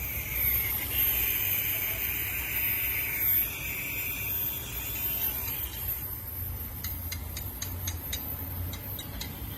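BMW 745 engine idling with a misfire, a steady low rumble with a hiss over it for the first few seconds and a run of sharp irregular ticks in the last three seconds. The misfire is put down to either a cracked ignition coil or its boot.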